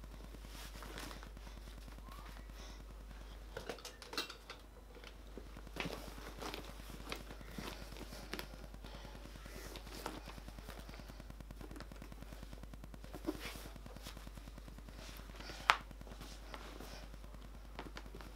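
Scattered light clicks and rustles of a shoulder bag and its strap being handled and adjusted on the body, with one sharp click about three-quarters of the way through. A low steady hum lies underneath.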